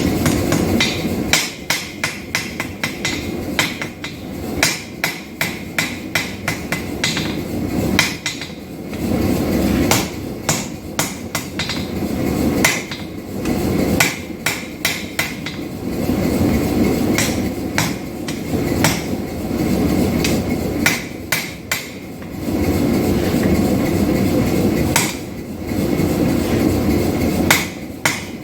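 Hammer blows forging hot steel knife stock: runs of sharp, ringing strikes with short pauses between them, over a steady low rushing noise.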